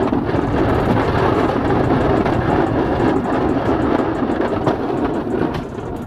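Boss DXT snowplow blade scraping along the pavement as the truck pushes snow, a steady rough rasp over the low run of the truck's engine, easing off near the end.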